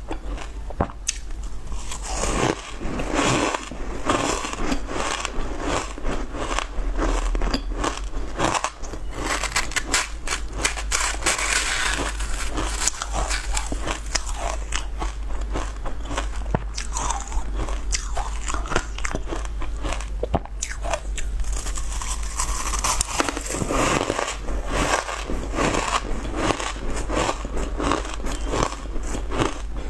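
Close-miked crunching and chewing of mouthfuls of shaved ice: a dense, irregular crackle of small crunches that never lets up, with a metal spoon digging into the ice in the bowl.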